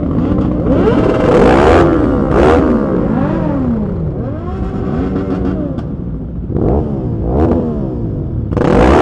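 Several motorcycle engines revving in a pack, with repeated throttle blips that climb and fall in pitch and overlap one another. The loudest surges come about a second and a half in, around two and a half seconds, and near the end.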